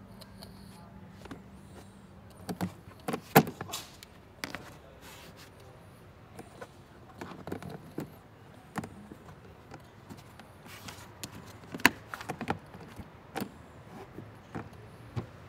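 Plastic pet carrier's grille door being handled: irregular clicks and knocks of plastic on plastic, two of them sharper than the rest.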